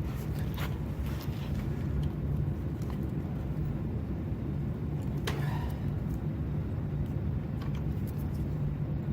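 Steady low hum in the background, with a few light clicks and taps of small metal parts and hand tools being handled; one tap about five seconds in rings briefly.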